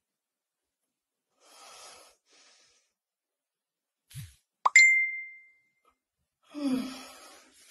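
A single sharp plop followed by a short ringing ding, a little under five seconds in, among faint rustling and a brief low falling sound before it and another soft rustle near the end.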